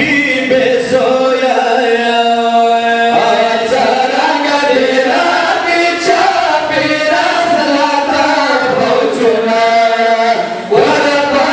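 Pashto noha: several men chanting a mourning lament together without instruments, in long held, wavering notes.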